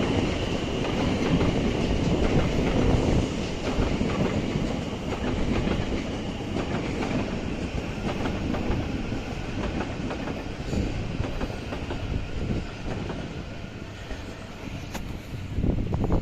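A train passing on the tracks below, its wheels clattering over the rails. It is loudest in the first few seconds and slowly fades.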